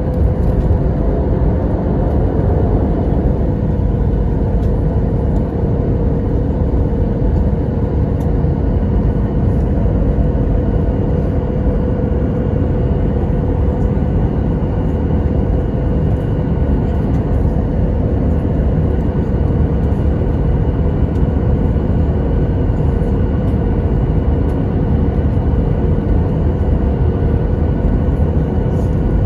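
Jet engines of a Boeing 737 heard from inside the passenger cabin: a steady rumble with a constant whine, the engines running at an unchanging setting.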